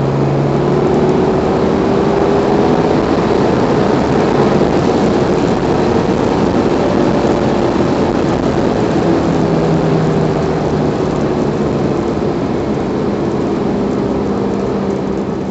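Cabin noise of a 2009 Subaru WRX cruising on a paved road: a steady rush of tyre and wind noise, with the turbocharged flat-four engine humming underneath, its pitch drifting gently up and down.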